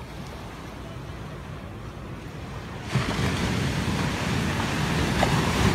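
Small ocean waves breaking and washing up on a sandy beach, heard as a steady rushing noise. About three seconds in, the rush turns suddenly louder and fuller.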